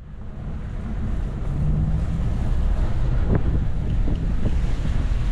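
A car running, heard from inside the cabin as a steady low rumble with wind buffeting the microphone. It swells up at the start, and there is a single sharp click about three seconds in.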